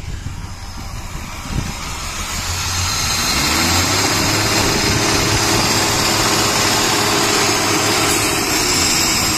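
Mercedes M110 2.8-litre straight-six running on its newly fitted electronic fuel injection. It grows louder about three seconds in and then runs steadily, with an even hiss over the engine note.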